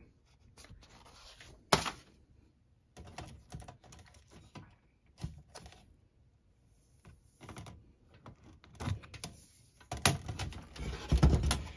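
Unpacking noises: irregular clicks, taps and rustles of a new box fan and its parts being handled out of the cardboard box. There is one sharp knock about two seconds in and a busier run of handling near the end.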